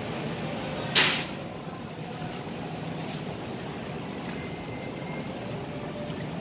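Steady supermarket background noise, with one short, loud hiss about a second in that dies away quickly.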